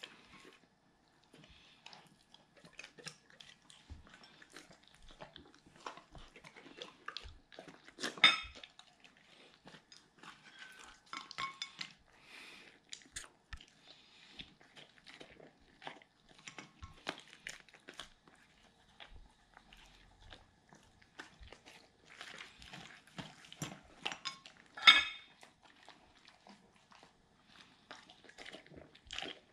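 Doberman licking and chewing leftover food from glass dishes, with small smacking mouth sounds and light clinks of its muzzle against the glass. There are two louder clinks, about eight seconds in and again about three-quarters of the way through.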